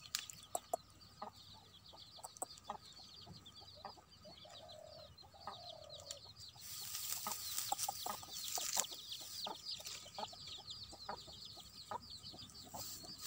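Hand-picking of leafy wild greens: faint snaps and clicks of stems being plucked, with a stretch of louder rustling of leaves and a plastic bag about halfway through. Chickens cluck in the background over constant high chirping.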